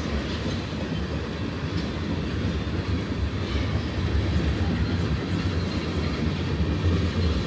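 Freight train of railroad tank cars rolling past: a steady low rumble of steel wheels on the rails, with faint clicking at the rail joints.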